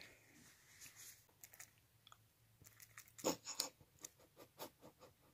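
Faint, irregular clicks and smacks from a rooster's beak and tongue as he licks his lips, most of them packed together a little past three seconds in.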